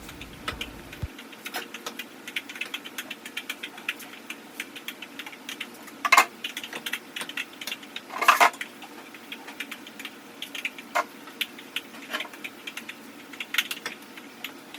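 Wood fire crackling and popping in a chulha under a pot of milk heating to the boil: rapid irregular small pops, with two louder bursts of crackling about six and eight seconds in.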